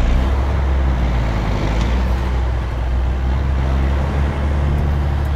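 1983 Mack CF611 fire engine's six-cylinder diesel running under way, a loud steady low drone, with the engine note rising a little near the end.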